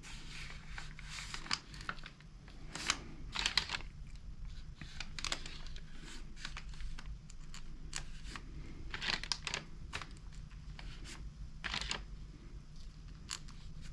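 Small metal screws and carburetor parts being handled and fitted by hand: irregular light clicks and scrapes, a few sharper ones, over a faint steady low hum.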